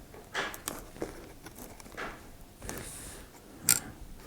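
Small handling noises as a replacement IO/SD card reader board is slid into an open Dell XPS 15 laptop chassis: scattered light clicks and rustles, with a sharper click near the end.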